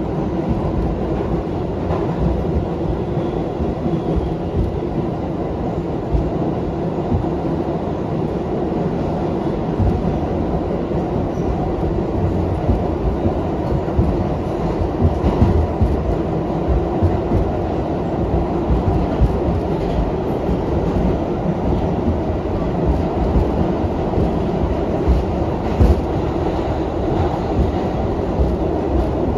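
New York City subway R62A car running along the track: a steady rumble of steel wheels on rail, with a few short knocks from the wheels and rail joints.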